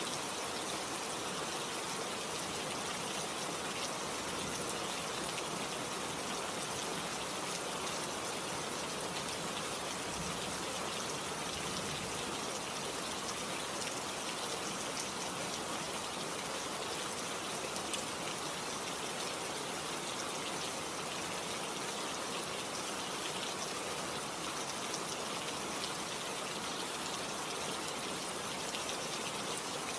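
Steady rain falling, a dense even hiss of drops with fine scattered pattering throughout.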